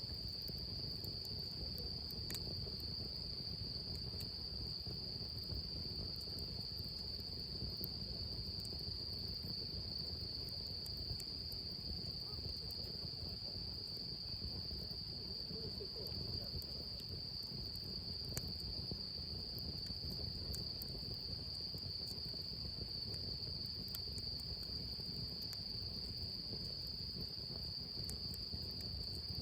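Steady, unbroken high-pitched chorus of crickets trilling, with a low background rumble and a few faint pops.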